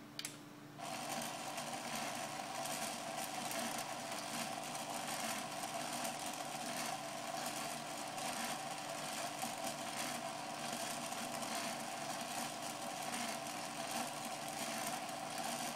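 Aircraft rotating beacon's motor switched on with a click and then running with a steady whir as it turns the lamp. It is powered from a 12-volt car battery, below its 28-volt rating.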